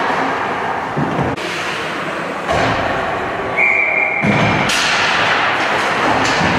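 Ice hockey rink sound heard from the stands: skates and sticks on the ice with dull thumps against the boards. A single whistle blast about a second long comes just past the middle, followed by a sharp crack.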